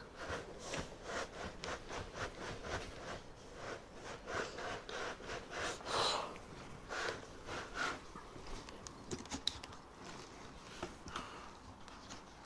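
Cardboard shipping box scraping and rubbing as it is slid up off the foam-packed printer, a run of short scraping rustles that thin out after about eight seconds.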